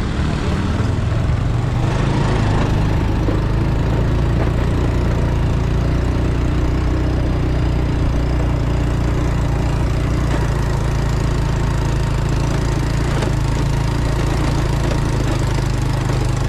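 Motorbike engine running steadily, heard from on the bike as it rides along a rough track.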